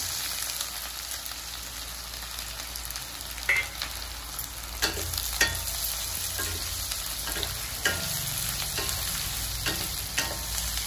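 Chopped onions sizzling steadily in hot mustard oil in a kadai as they are stirred, with the stirring utensil knocking and scraping against the pan now and then.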